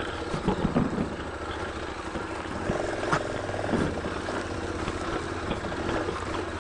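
KTM motorcycle engine running at low revs as the bike picks its way along a rough forest single track, with a sharp knock about three seconds in.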